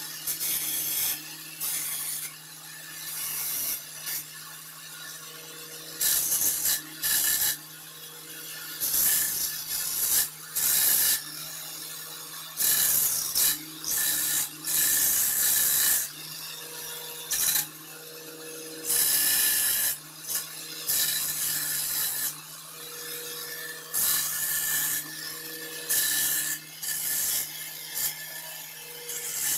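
Bench belt sander running with a steady motor hum while the sawn end of a wooden board is pressed against the belt over and over to smooth it. Each contact is a loud rasping grind lasting a second or more, with quieter running between them.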